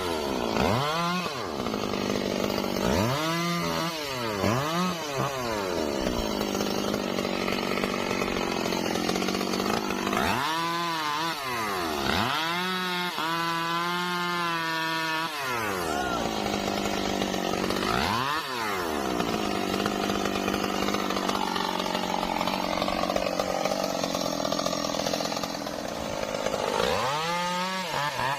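Stihl MS 382 two-stroke chainsaw revved up and down again and again, with longer stretches held at high revs while it cuts trembesi wood.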